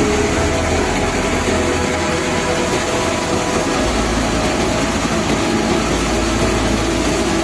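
Tractor-driven multi-crop thresher running steadily as mustard stalks are fed into it. The threshing drum and the tractor engine make a loud, continuous machine noise.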